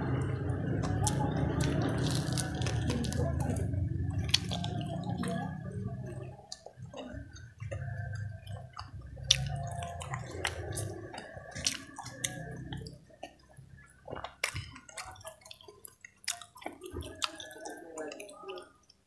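Close-miked chewing of crispy fried vegetable fritters (bakwan): crunching with wet mouth clicks and smacks. The sound is dense for the first few seconds, then thins to scattered sharp clicks.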